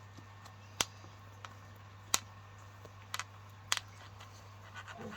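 A handful of short, sharp clicks, four in all and a second or so apart, over a steady low hum.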